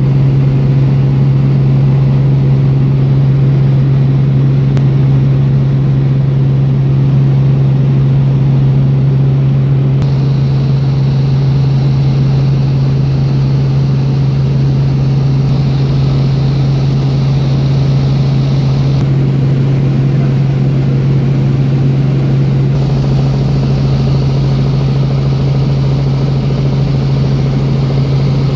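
Helicopter in flight, heard from inside the cabin: a loud, steady engine and rotor drone with one strong low hum.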